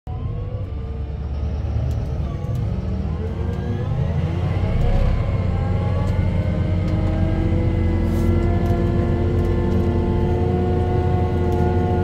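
Fendt 828 tractor's six-cylinder diesel engine under load pulling a reversible plough through the soil, heard from inside the cab: a steady low rumble with a whine above it. The whine's pitch wavers over the first few seconds, then holds steady.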